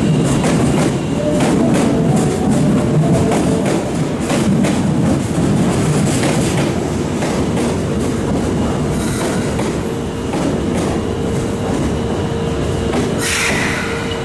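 Osaka Metro Tanimachi Line subway train running along the track, a loud rumble with wheels clicking over rail joints. A steady hum comes in about two-thirds of the way through, and a short hiss sounds near the end.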